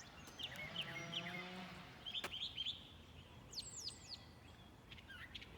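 Songbirds chirping outdoors: short chirps in the first two seconds and a quick run of high falling notes a little past the middle, with a faint low drawn-out sound under the opening chirps.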